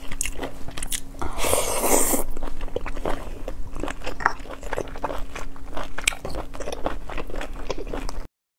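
Close-up chewing and biting of sea snail meat, with many short wet clicks and smacks and a louder noisy stretch of about a second about a second and a half in. The sound cuts off suddenly near the end.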